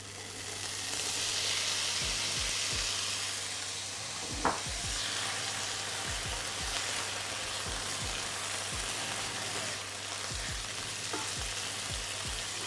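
Chickpeas and onions sizzling in hot oil in a frying pan, loudest in the first few seconds, while a silicone spoon stirs and scrapes them round the pan. One sharp knock about four and a half seconds in.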